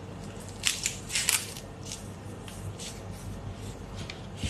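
Shell being peeled off a large marinated prawn with gloved fingers: a few short wet crackling, squishing sounds in the first second and a half, then fainter clicks.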